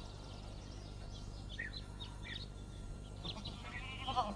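Outdoor ambience of small birds chirping in short, scattered falling notes, with a brief wavering sheep bleat near the end.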